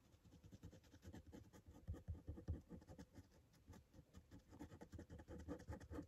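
Fine-tip pen scratching on paper in many quick, short, irregular strokes, laying down small feather marks. The sound is faint.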